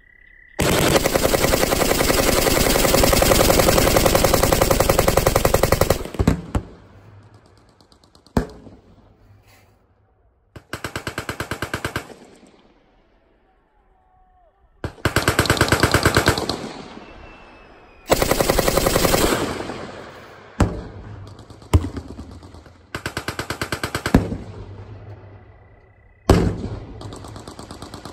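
Machine-gun fire in long bursts, the first lasting about five seconds and later ones one to three seconds, with quieter gaps and a few single sharp bangs between them.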